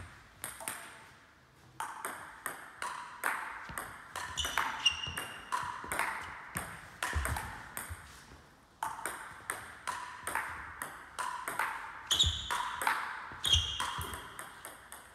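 Table tennis rally: the celluloid ball clicking alternately off the table and the bats, about two hits a second, one bat faced with Spinlord Hai long-pimple rubber. Two rallies, with a short pause near the middle, each hit ringing briefly in the large hall.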